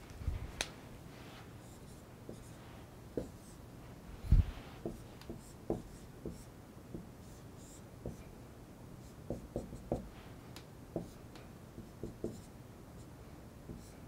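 Dry-erase marker drawing on a whiteboard: short, faint scratches and taps of the marker tip on the board, scattered throughout. A dull thump about four seconds in is the loudest sound.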